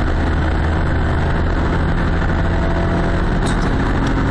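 A car driving along a road, heard from inside the cabin: steady engine and tyre noise with a low rumble.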